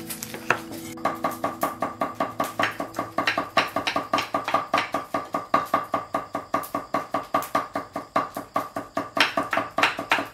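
Rapid, even chopping with a kitchen knife on a wooden cutting board, about five strokes a second, starting about a second in.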